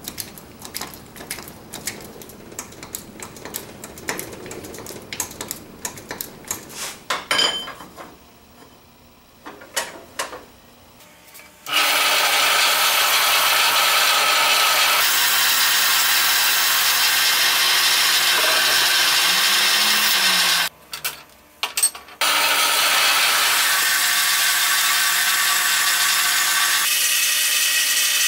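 Scattered small clicks and metal knocks for roughly the first ten seconds. Then a horizontal metal-cutting bandsaw starts up and runs steadily, its blade cutting through a steel pipe. The saw noise breaks off for a second or two a little past two-thirds of the way through.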